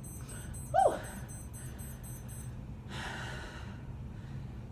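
A woman breathing hard after a set of kettlebell swings: a short voiced gasp about a second in, then a long breath out about three seconds in. A high-pitched electronic timer beeps rapidly through the first half and then stops, marking the end of the work interval.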